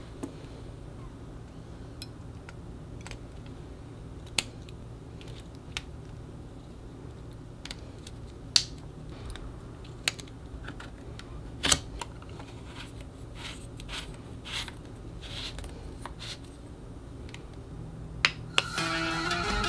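AAA batteries and plastic lightstick parts being handled as the batteries go into the battery compartment: scattered sharp clicks and taps, the loudest about halfway through and just before the end. Guitar music starts near the end.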